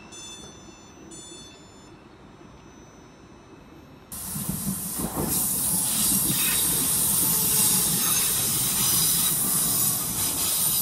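Electric multiple unit train running past on the adjacent track: a loud, even rushing hiss over a low rumble that starts abruptly about four seconds in.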